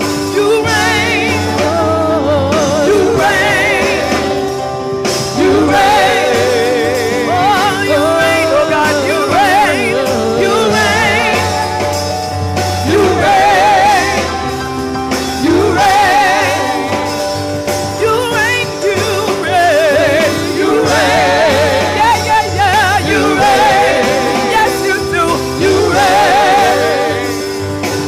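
A woman singing a gospel song with strong vibrato and long runs, over held chords and bass on a Roland Juno-DS electric keyboard.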